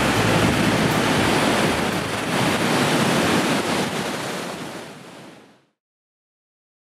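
Ocean waves breaking: a steady rush of surf that fades over a couple of seconds and stops about five and a half seconds in.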